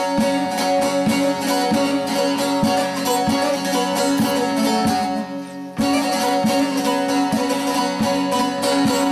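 Bağlama (long-necked Turkish saz) played solo, rapid plucked strokes of a folk tune over ringing drone strings. The playing drops away briefly about five seconds in, then picks up again.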